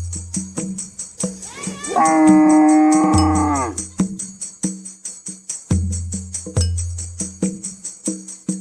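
Background music with a steady tambourine-like beat and low bass notes. About two seconds in, a cow gives one long moo that falls in pitch as it ends.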